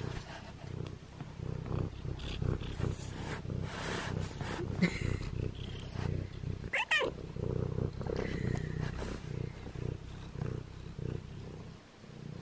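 Ginger domestic cat purring right up against the microphone, a steady pulsing low rumble, with fur brushing and rustling against the camera and a brief chirping call about seven seconds in.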